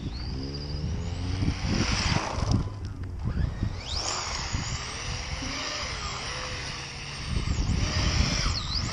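Losi XXX-S RC car's Reedy 3300kv sensorless brushless motor whining as it is driven hard. The pitch climbs steeply about four seconds in and swoops up and down as the throttle is worked, over a steady low hum.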